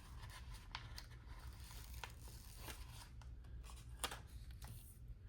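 Faint paper handling: sticker sheets rustling and stickers peeling from their backing, with a few light ticks, the clearest about four seconds in, over a low steady room hum.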